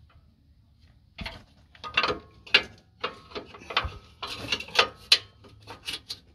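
Steel pry bar levering against a front lower control arm and its rubber suspension bush, making a run of irregular metallic clicks and clunks that start about a second in. The bush being pried is worn (chopped out).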